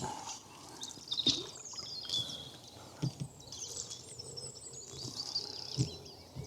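Small birds singing, with high chirping calls coming and going, over a few soft knocks and splashes from a wooden canoe's paddle strokes.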